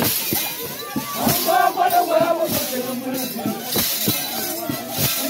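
Golob dance music of the Talensi people: rattles shaking and feet stamping in a quick rhythm, with voices singing and calling over it.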